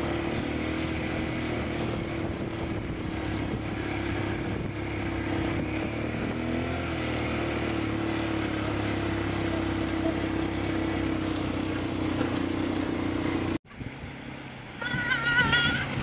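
Quad ATV engine running steadily at an even cruising speed, a constant hum with no revving. It cuts off abruptly near the end, giving way to a quieter stretch.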